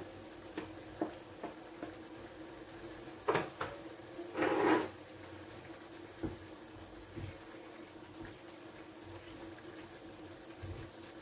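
Tomato sauce simmering in a clay tajine while a spoon stirs in chopped herbs, with soft bubbling and small clicks and scrapes of the spoon against the clay. The loudest scrapes come about three and four and a half seconds in.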